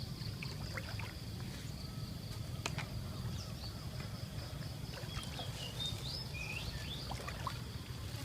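Outdoor ambience over flooded rice fields: a steady high insect drone over a low rumble, with a few short bird chirps a little past the middle.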